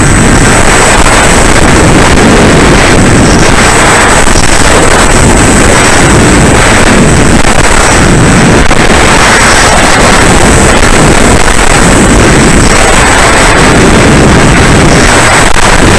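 Loud, steady, distorted rush of wind and the electric pusher motor and propeller of a Bixler 3 RC plane in flight, as picked up by its onboard camera, with a thin steady high whine.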